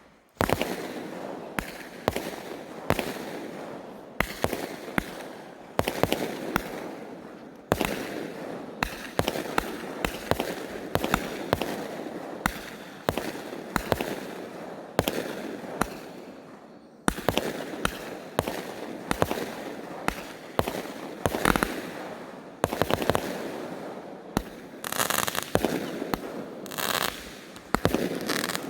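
Consumer fireworks going off in a continuous series of sharp bangs, about one or two a second. The bangs pause briefly about two-thirds of the way through, then come thicker and faster near the end.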